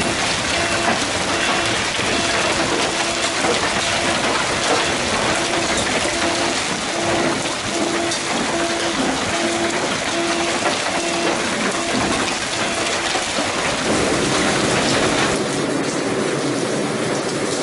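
Hail and rain pelting a street and parked cars: a dense hiss with many small sharp ticks of hailstones striking. A short beep repeats about every 0.7 s through most of it and stops about three-quarters of the way in. Near the end the hiss turns duller.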